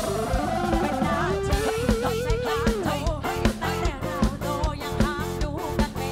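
Live band playing: electric guitar and drum kit under sung vocals, with a long held vocal note with vibrato about a second in.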